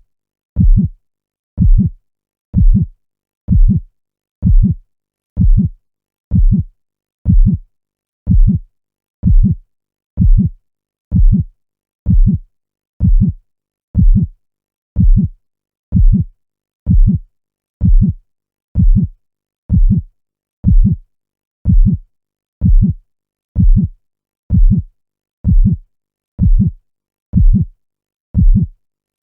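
Heartbeat sound: a steady, slow pulse of low thumps, about one a second, with silence between the beats.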